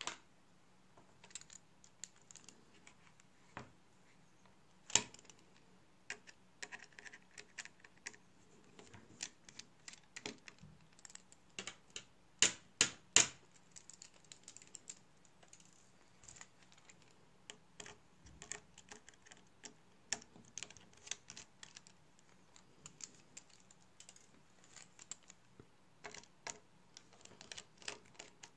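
Irregular small clicks and taps of a precision screwdriver and small parts being handled on an opened iPhone 6s during a screen replacement. There is a louder click about five seconds in and three sharp clicks in quick succession around the middle.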